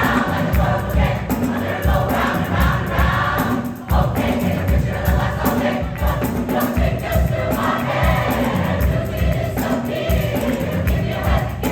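Community choir singing in many voices over a steady, thumping low beat.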